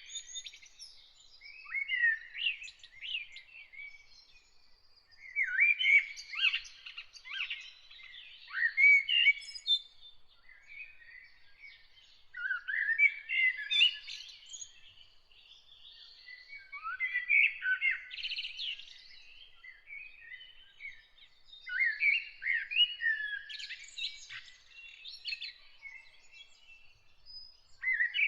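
A bird singing in repeated phrases a few seconds apart, each phrase a quick run of chirps and warbled, gliding notes.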